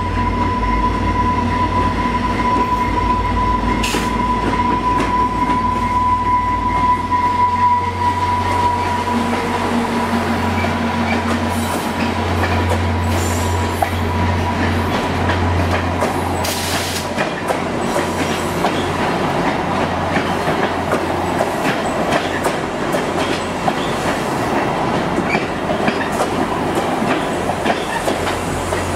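VIA Rail passenger train arriving and rolling slowly past: the F40PH-2 diesel locomotive's two-stroke EMD 645 engine rumbles by, then the coaches pass with clicking wheels over the rail joints. A high steady squeal from the wheels is strong through the first several seconds, then fades.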